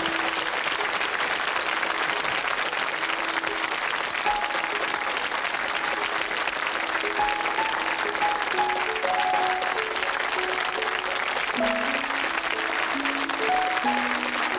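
Studio audience applauding steadily while the show's closing music plays, its melody growing fuller toward the end.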